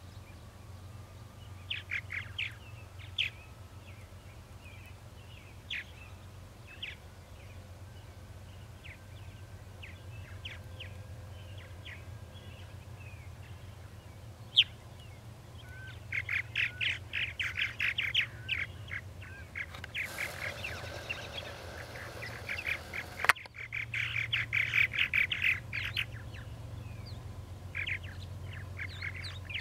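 Purple martins calling: scattered short chirps at first, then dense, rapid chattering from about halfway through. A few seconds of rushing hiss cut off abruptly in the later half, and a steady low hum runs underneath.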